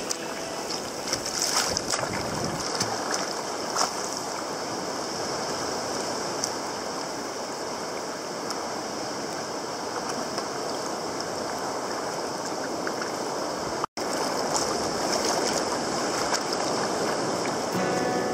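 Choppy sea water sloshing and splashing against a sea kayak's hull, heard close up from the deck, with a few sharp slaps in the first few seconds. The sound cuts out for an instant about fourteen seconds in.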